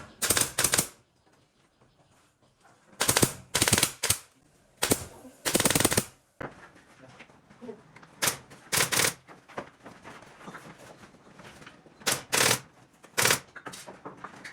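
A power tool drives fasteners into wood in short bursts of rapid clattering, about nine bursts with pauses between them.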